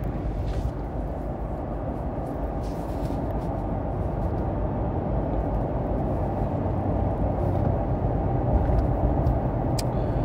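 Road and engine noise heard inside a moving car's cabin: a steady low rumble that grows slightly louder toward the end, with a few faint ticks.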